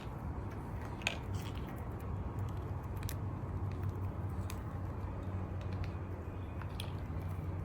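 A steady low hum with a few faint, scattered clicks and taps.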